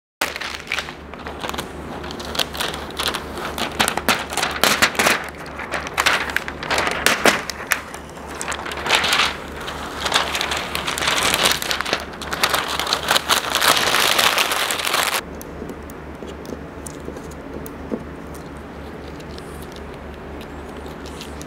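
Red adhesive masking film being peeled off a dyed wood board: an irregular crackling, crinkling rip as the tape lifts from the surface. It stops suddenly about two-thirds of the way through, leaving a steady low hum.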